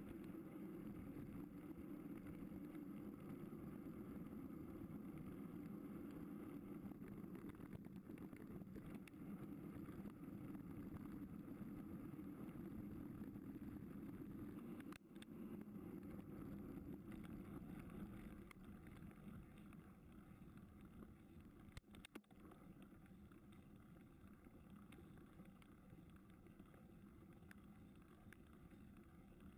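A low, steady rumble of riding noise from a mountain bike rolling along a gravel road, with wind on the microphone. It breaks off briefly twice and is somewhat quieter in the second half.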